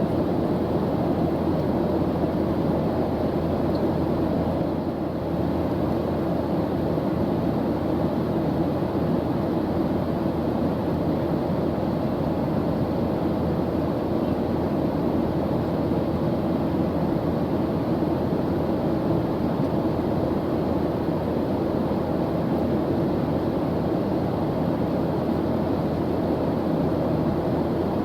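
Airplane engine noise: a steady, even hiss and drone, heaviest in the low and middle pitches, that does not change.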